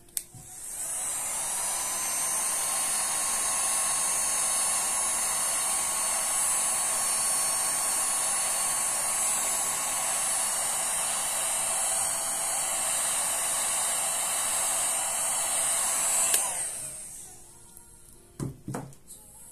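Electric heat gun switched on with a click, its fan coming up to speed and running steadily with a high whine as it blows hot air over wet resin, then switched off with a click about sixteen seconds in and spinning down. A few short knocks follow near the end.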